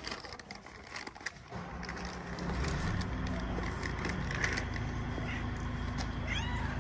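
Young kittens giving a few high, thin mews, the clearest near the end, over a low steady rumble that sets in about two seconds in. A few light knocks come in the first second or so.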